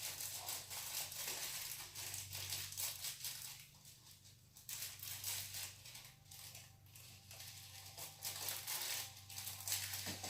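Irregular rustling and crinkling as slime and its plastic containers are handled, in uneven stretches with short pauses, over a faint steady low hum.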